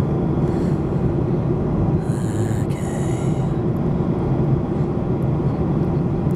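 Steady low rumble and hum of a vehicle in motion, heard from inside, with a brief hiss about two seconds in.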